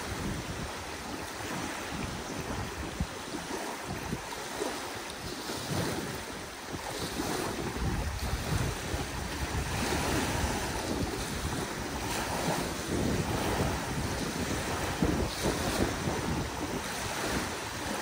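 Small wind-driven waves washing and breaking onto a sandy lake shore, with gusty wind buffeting the microphone, heavier from about halfway through.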